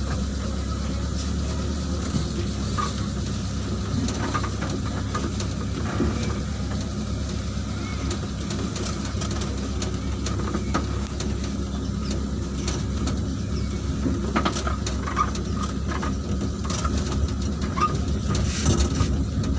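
Truck engine running steadily as the truck drives, heard from inside the cab, with scattered knocks and rattles, more of them near the end.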